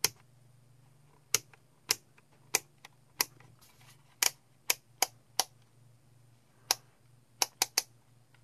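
DANIU DT832 digital multimeter's rotary range selector switch clicking through its firm detents as it is turned. About fifteen sharp clicks come at irregular spacing, with a quick run of four near the end.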